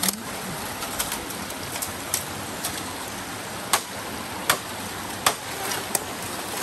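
Long dry bamboo pole being pulled and handled through dry brush: sharp cracks and knocks every second or so, the loudest a little past the middle, over the steady rush of a small stream.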